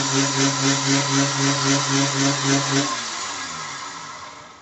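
Mini wood lathe with a 12–24 V DC motor running with a steady hum that pulses about four times a second while a chisel is held against the spinning wood. About three seconds in it is switched off, and the motor winds down with a falling whine.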